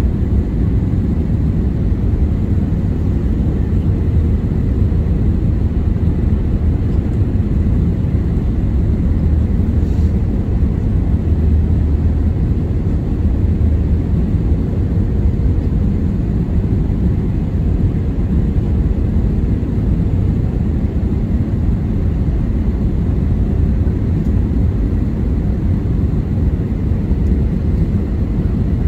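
Steady low rumble of an Airbus A320-200 heard from inside the passenger cabin: engine and airflow noise, with a faint steady hum on top.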